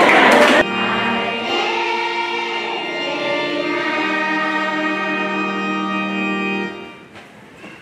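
Choir singing long held notes over organ-like sustained chords. The notes change pitch a few times and the music fades out about seven seconds in. It opens with a brief loud burst of noise.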